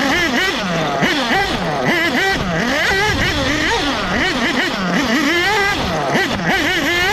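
1/8-scale nitro buggy's Bullitt B-223 engine, heard close up from the onboard camera, revving up and down through the corners. Its pitch rises and falls about every half second.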